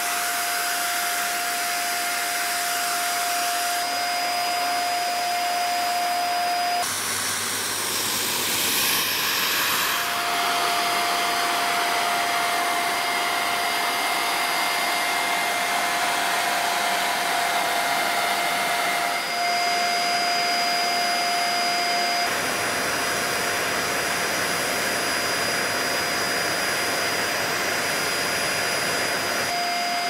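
Dyson Small Ball upright vacuum cleaner running steadily: a rush of air with a steady whine over it. The whine drops out for about three seconds around seven seconds in.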